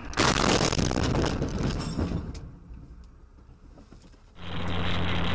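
Car crash: a sudden loud impact with crashing and scraping for about two seconds, dying away. About four seconds in, steady road and engine noise with a low hum cuts in abruptly.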